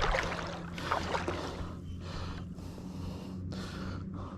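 Sea water washing against the shore in recurring washes, over a steady low hum.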